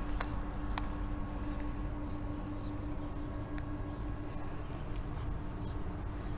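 Outdoor background: a steady low rumble with a constant hum, two sharp clicks within the first second, and a few faint short chirps.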